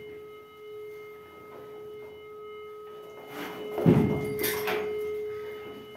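Handheld cattle metal detector giving a steady electronic buzzer tone as it is swept along a cow's underside, checking for swallowed metal (hardware disease). A burst of scuffling with a loud knock comes about four seconds in.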